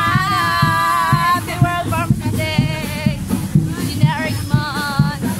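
Parade music with a steady drum beat, with women's voices calling and singing along over it. A long held, wavering call comes at the start and shorter calls follow.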